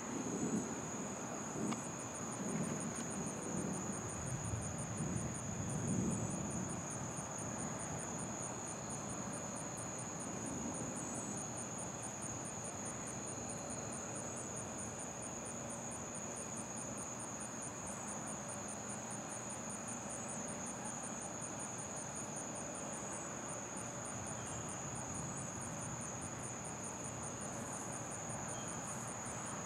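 A chorus of night insects throughout: a steady high-pitched drone with an evenly pulsing chirp above it, about three pulses a second. Over the first six seconds or so a low rumble of distant thunder follows a lightning flash.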